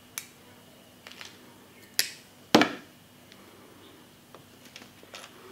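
Sharp metallic clicks of pliers, steel trace wire and hook being handled while a second hook is fixed onto a wire fishing trace: four clicks a second or less apart, the one about two and a half seconds in the loudest, then a few faint ticks near the end.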